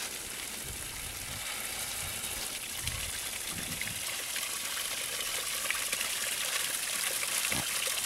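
Water running hard from an open outdoor spigot and splashing into a rubber tub: a steady rushing hiss.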